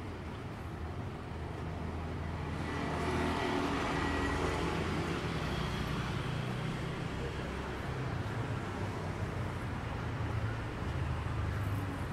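Street traffic: a steady low engine hum, with a vehicle passing close by, loudest about four seconds in.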